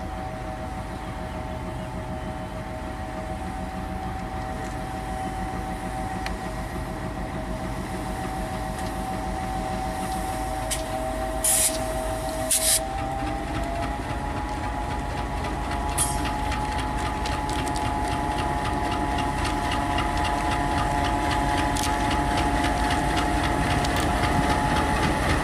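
Diesel-hauled passenger train (Bangladesh Railway locomotive 6511) approaching and growing louder. A steady engine tone rises slightly in pitch about halfway through, just after two short, sharp bursts. Even, rhythmic clicking of wheels over the rail joints comes in during the second half.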